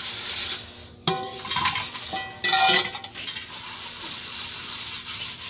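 Brass pots being scoured with ash and handled: gritty scrubbing and scraping, with the brass clinking and ringing briefly about a second in and again around two and a half seconds in.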